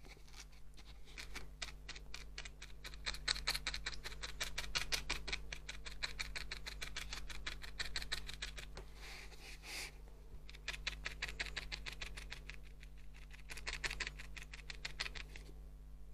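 Felting needle jabbing rapidly and repeatedly into wool, several sharp pricks a second, with a brief pause about ten seconds in.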